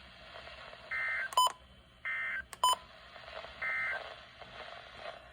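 Emergency Alert System end-of-message signal from NOAA Weather Radio: three short bursts of two-tone digital data screech, about a second or more apart, closing the tornado warning broadcast. Two brief, louder electronic beeps fall between the bursts, after the first and after the second.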